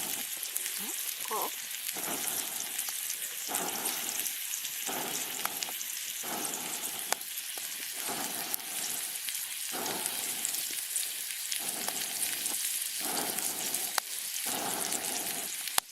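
Campfire crackling and sizzling: a steady hissing crackle with sharp pops, broken by repeated lower rushing sounds, each about a second long, that come and go throughout.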